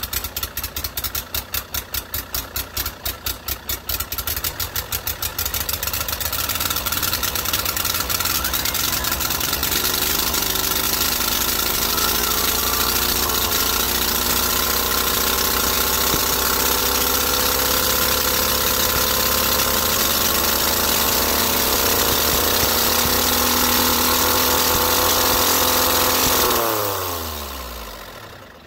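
Kubota D722 three-cylinder diesel in runaway, stuck at wide-open throttle with the kill lever not stopping it, a fault the owner hopes is a stuck fuel rack. For the first few seconds it pulses unevenly, then runs loud and steady with its pitch slowly climbing. Near the end it runs out of fuel and winds down to a stop.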